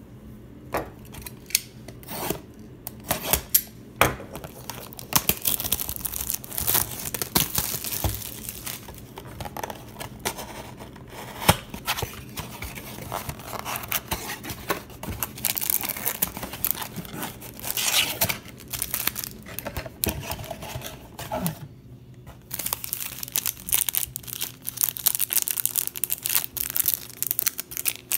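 Shrink-wrapped cardboard trading card box being unwrapped and torn open by hand: plastic wrap crinkling and tearing, and cardboard ripping. A few sharp clicks in the first seconds, then nearly steady crinkling with a short pause near the end.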